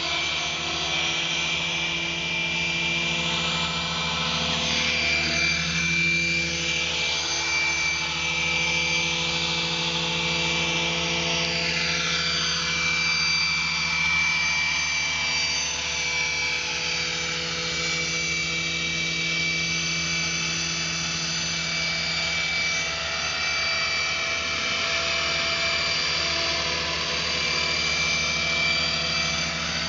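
Gaui Hurricane 425 radio-controlled electric helicopter in flight. The rotor blades give a steady buzz under a high whine from the motor and gears, and the tone sweeps slowly as the model moves about.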